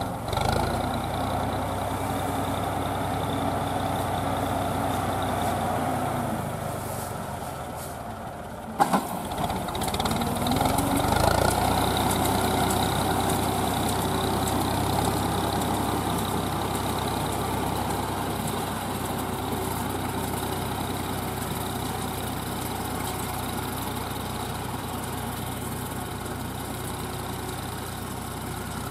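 A Deutz D5006 tractor's air-cooled three-cylinder diesel runs steadily under load, driving a straw round baler through a harvested rice field. A sharp click comes about nine seconds in, and then the same engine hum carries on.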